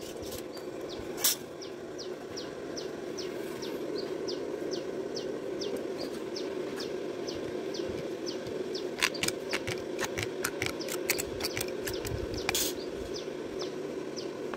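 Tin snips cutting thin galvanized sheet metal, heard as a quick run of sharp metallic clicks about two-thirds of the way in, with a single click about a second in. Behind it a bird repeats a short falling chirp about twice a second over a steady low hum.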